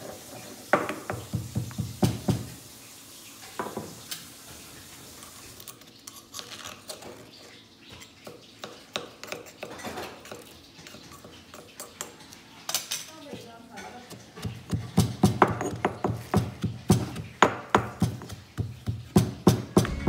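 Stone pestle pounding Oreo cookies in a granite mortar: repeated dull knocks of stone on stone through crushed biscuit. The strokes are sparse through the middle and come in a quick, regular run of about two or three a second in the last five seconds.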